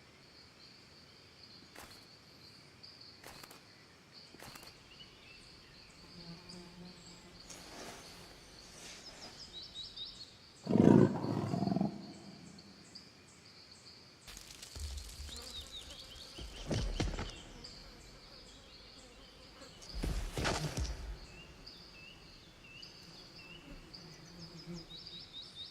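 A tiger roaring, one loud low call a little under halfway through, with shorter growls later, over a steady high drone of insects.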